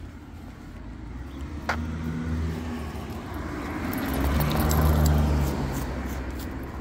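A car driving past on the adjacent street, its engine and tyre noise building to the loudest point about five seconds in and then fading. A single sharp click sounds near the start.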